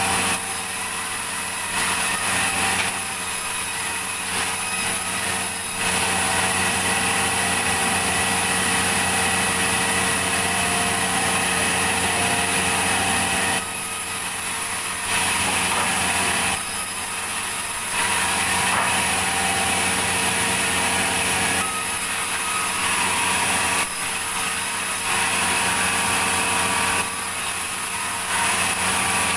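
Sawmill saw running steadily and cutting through a log, its loudness stepping up and down every few seconds.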